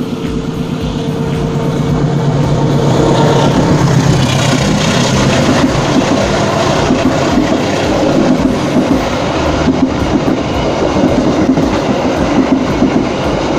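Passenger train passing close by on the next track: a diesel locomotive's engine drone in the first few seconds, growing louder, then the coaches rolling past with a steady clatter of wheels over the rail joints.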